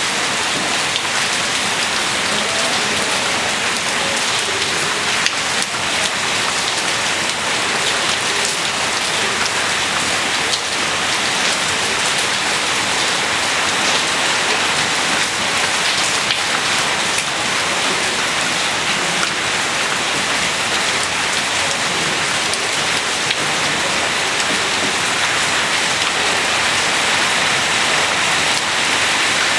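Steady rain falling, with many small drop impacts on hard surfaces. The downpour holds even throughout.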